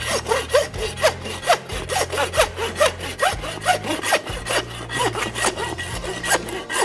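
Hand bone saw cutting through beef rib bones in steady back-and-forth strokes, about three a second, each stroke with a short rasping squeal.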